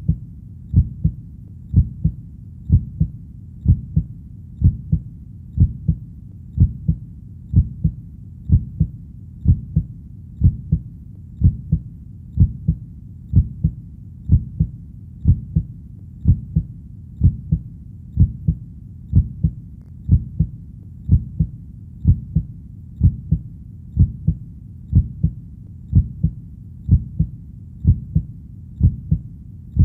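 Human heartbeat sound: a steady lub-dub rhythm of low double thumps, about one beat a second.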